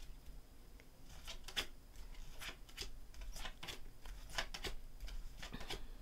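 Large cardstock tarot cards being flipped through by hand one at a time, giving a run of faint papery slides and flicks as each card is moved to the back of the deck.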